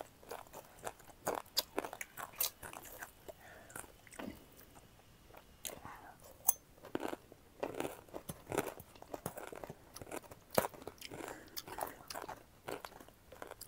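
Close-up chewing of crunchy food, with irregular sharp crunches that thin out for a few seconds and come thicker again in the second half.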